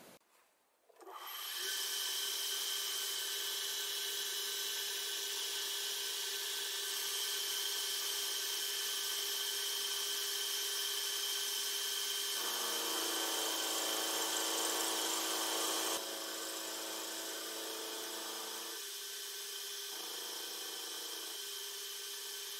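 Milling machine starting up about a second in and running steadily, cutting a hex flat on a flanged nut blank in 2 mm cuts. Its steady whine changes pitch several times in the second half, and the sound drops a little in level about two-thirds of the way through.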